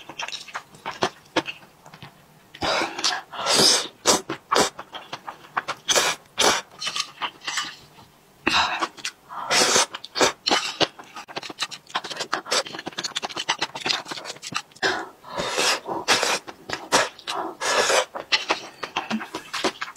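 Close-miked eating of thick noodles in a spicy sauce: loud, wet slurps as strands are sucked in, in several spells, with chewing and lip-smacking clicks between them.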